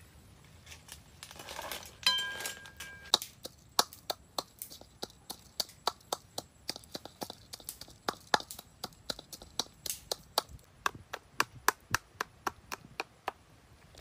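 Chillies being pounded in a coconut-shell bowl with the butt of a machete handle: a long run of sharp knocks, about three a second. About two seconds in, a loud metallic clink with a brief ring.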